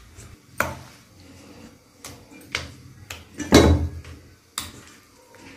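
A handful of short knocks and clatters of kitchen utensils being handled, about five in all, with the heaviest thud about three and a half seconds in.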